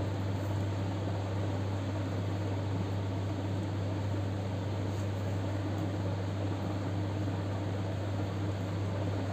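A steady low hum over a constant background hiss.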